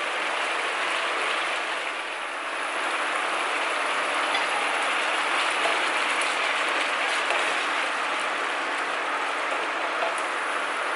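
Butter sauce with squid pieces bubbling and sizzling in a nonstick frying pan as it is brought to a boil, a steady crackling hiss.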